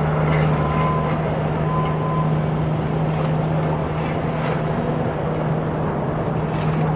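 Heavy machinery engine running with a steady low drone over mechanical noise. Two short high beeps sound in the first two seconds, and a few faint clanks follow.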